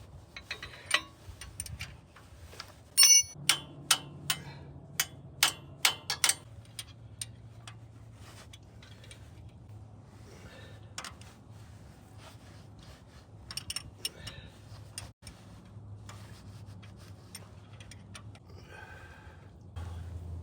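Steel pins, bolts and tools clinking and knocking against the tractor's attachment mounts: a ringing metal clank about three seconds in, a quick run of sharp ticks over the next few seconds, then scattered quieter clicks, over a low steady hum.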